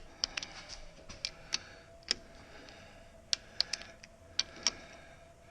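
Irregular sharp clicks and light metallic taps of hand tools being worked on bolts, with a faint steady hum through the middle.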